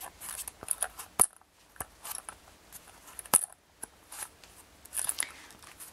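Cords being pulled and tucked into the slots of a foam kumihimo disk: light rustling with several sharp little clicks, the loudest about a second in and again past the three-second mark.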